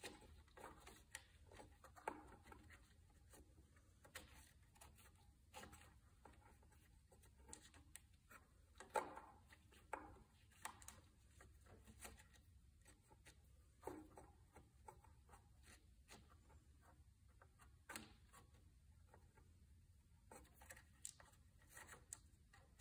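Quiet, scattered clicks and rubbing from hands handling wiring and hoses on a riding mower's engine, with a few sharper clicks near the middle and later on.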